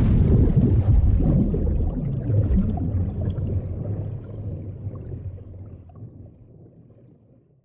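Underwater bubbling and low rumble, a water sound effect, that fades out steadily over the last few seconds to silence.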